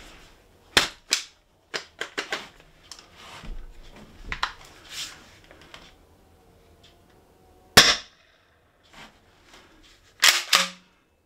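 Umarex HDX 68 CO2 pump-action gun, fitted with a Powerkit68, firing one sharp shot about eight seconds in, a shot of roughly 27 joules. Before and after it come sharp paired clacks, about a second in and again near the end, with smaller handling knocks in between as the gun is worked.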